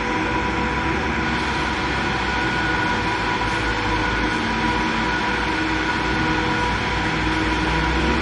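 Train running through a railway station: a steady rumble with a faint steady whine over it.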